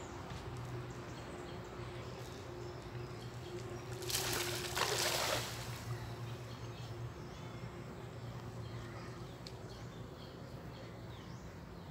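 A cast net landing flat on pond water, a hissing splash lasting about a second and a half, about four seconds in, with water sloshing around a wader afterwards. A steady low hum and faint bird chirps sit underneath.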